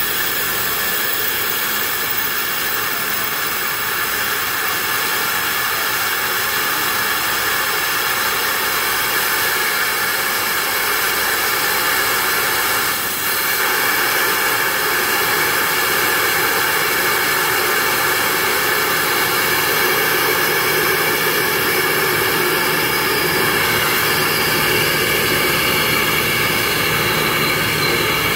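Air rushing in through the opened vacuum port of a 0.7 T MRI magnet's vacuum jacket: a loud, steady hiss as the vacuum around the helium vessel is released. The hiss dips briefly about halfway through.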